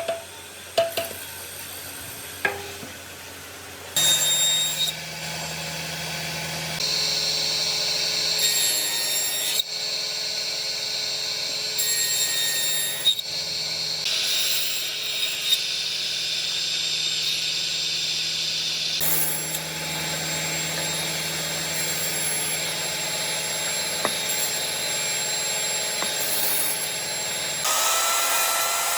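An electric power tool running on wood, steady with a constant low hum and a bright hiss, changing abruptly several times as clips are cut together; a few sharp knocks come in the first seconds.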